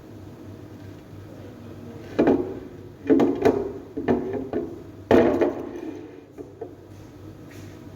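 Metal engine parts knocking and clattering as they are handled while valve tappets are pulled from a Scania diesel engine. About five loud clunks come in quick succession, each with a short ring.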